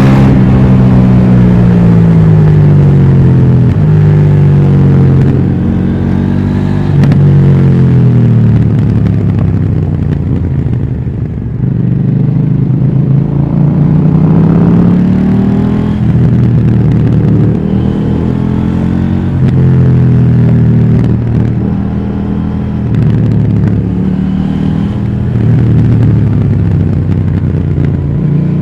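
KTM Duke 790's parallel-twin engine through its stock exhaust, riding hard: the revs climb and drop again and again, with the engine note falling on deceleration and rising under acceleration every few seconds.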